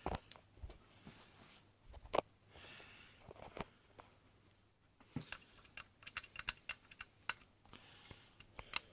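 Small clicks and taps of a screwdriver and tiny screws working on a spring airsoft pistol's frame halves during reassembly. A short scrape comes about two and a half seconds in, and a quick run of light ticks follows from about five seconds in.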